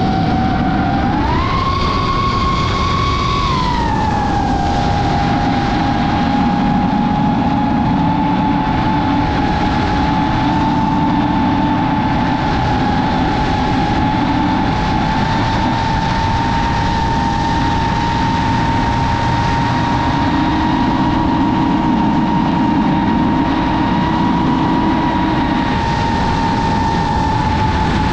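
DJI FPV drone's motors and propellers whining in flight over a rushing noise. The whine jumps up in pitch about a second in as the motors speed up, drops back near four seconds, then holds almost steady and edges slightly higher.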